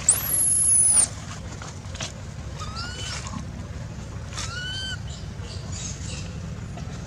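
Baby macaque calling: a loud, very high-pitched squeal in the first second, then two short arching whimper calls about 3 and 4.5 seconds in, over a steady low rumble of wind.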